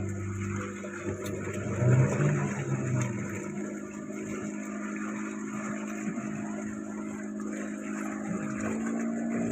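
Boat engine running steadily, with a brief louder stretch about two seconds in and its pitch stepping up slightly near the end.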